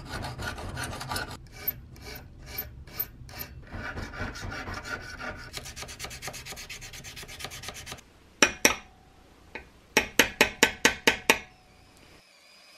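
Hand filing on a small steel patchbox hinge: rapid rasping strokes, slowing to about six separate strokes a couple of seconds in, then quickening again. Near the end a small hammer taps a punch on the hinge about eight times in quick succession.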